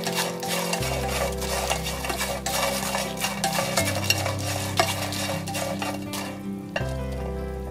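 Wooden chopsticks quickly stir-frying crisp dried chili-pepper bugak in oil in a nonstick frying pan: a dense rattle of clicks and scrapes that thins out about six seconds in.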